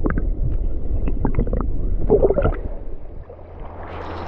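Shallow water sloshing and gurgling, with small splashes and clicks from a hand working in it, over a low rumble. Near the end a steady rushing hiss comes in.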